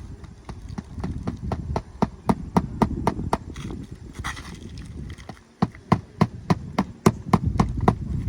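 A hand hammer tapping on a roof shingle in quick, even blows, about four a second, in two runs with a short break about halfway through.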